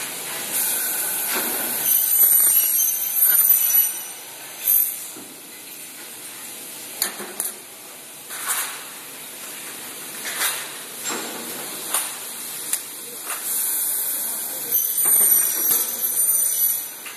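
Double-head mitre saw cutting aluminium window-frame profiles: two cuts, each a high-pitched whine lasting a few seconds, one about two seconds in and one about fourteen seconds in. Scattered sharp knocks of metal between the cuts.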